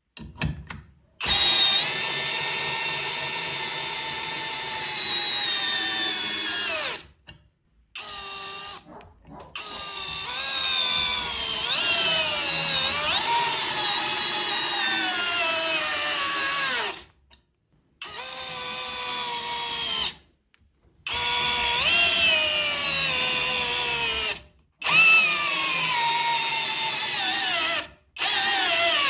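Parkside PBSPA 12 E4 12 V cordless drill-driver's motor whining in about six trigger-controlled runs of a few seconds each, separated by short pauses. Its pitch rises and falls with the trigger and drops as the motor spins down at the end of each run.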